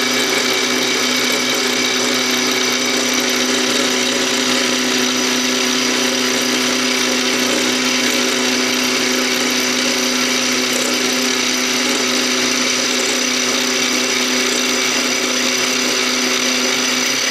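Benchtop mini mill running steadily, its roughing end mill cutting into an aluminum block. The spindle whine holds one pitch over a rough cutting noise, then stops just after the end.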